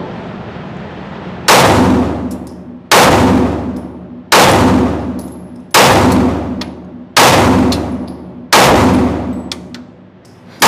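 Glock 43X 9mm pistol fired six times at a slow, even pace, about one shot every second and a half, starting about a second and a half in, with another shot right at the end. Each shot rings out with a long echoing decay in an indoor shooting range.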